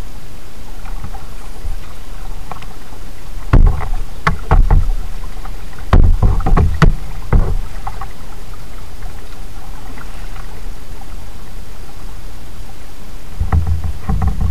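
Kayak paddling: groups of paddle splashes and knocks carried through the plastic hull, about three and a half seconds in, again around six to seven seconds, and near the end, over a steady hiss.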